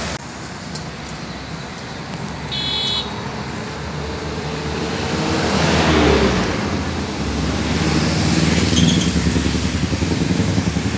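Road traffic passing: motor vehicle engines and tyre noise swell as vehicles go by, loudest about six seconds in and again near the end. A short high horn beep sounds about two and a half seconds in.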